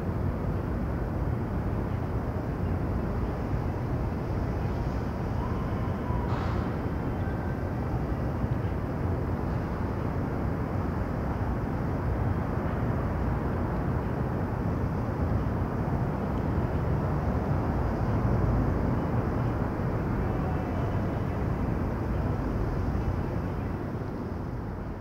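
Steady low rumbling background noise with no music or speech. There is a single sharp click about six seconds in, and the rumble starts to fade near the end.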